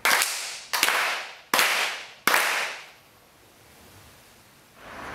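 Four sharp hand claps from a kneeling group clapping in unison, evenly spaced about three-quarters of a second apart, each ringing on in a reverberant wooden dojo hall. They are the ritual claps (kashiwade) of a Shinto-style bow-in before the dojo shrine.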